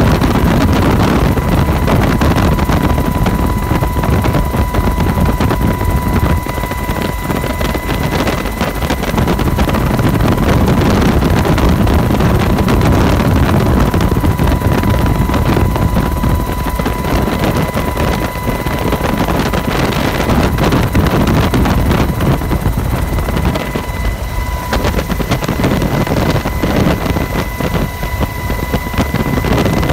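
Helicopter in flight heard from inside the cabin: steady, loud engine and rotor noise with a constant high whine over it.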